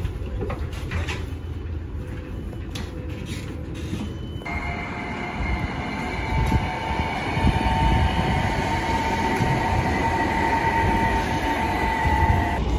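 An articulated low-floor tram passes on street rails, running with a steady high whine over a rolling rumble. The whine starts about four seconds in, after a stretch of rumble and scattered clicks.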